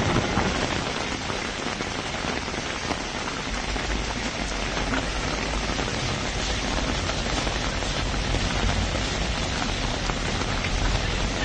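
Steady rain falling on a slush- and hail-covered street, an even hiss of water. A low rumble joins it about four seconds in.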